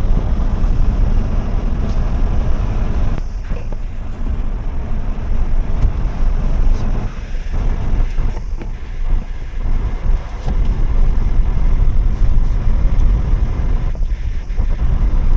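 Car driving along, heard from inside the cabin: a steady, loud low road and engine rumble that eases slightly now and then.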